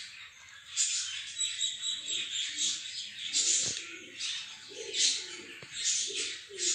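Many small birds chirping continuously, with two short clicks about three and a half and five and a half seconds in.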